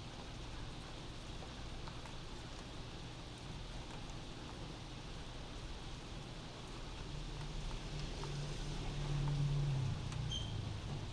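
Steady rain heard from inside a house, with a vehicle passing outside: a low rumble builds from about seven seconds in, is loudest near the end, then drops away.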